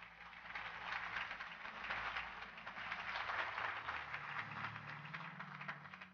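Audience applause: many hands clapping, building over the first second and tapering off near the end.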